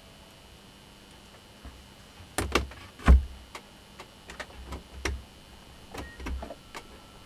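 An angle-grinder armature handled and set down on a workbench: a few knocks and clicks, the loudest about three seconds in. Then lighter clicks near the end as an analog multimeter's rotary range switch is turned.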